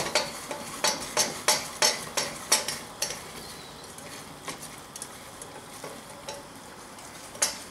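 Wooden spatula scraping and knocking against a small stainless steel saucepan as butter-and-sugar caramel sauce is stirred, the caramel sizzling under it. The strokes come about two or three a second for the first three seconds, then more sparsely.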